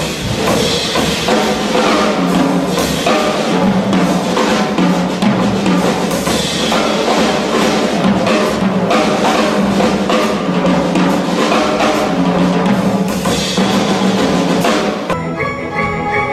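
Live band music driven by a drum kit playing busy, rapid strokes on snare and bass drum over sustained pitched accompaniment. About 15 seconds in it cuts abruptly to recorded music with bowed strings.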